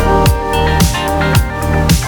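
Background music with a steady beat: a deep kick drum about twice a second under sustained instrumental tones.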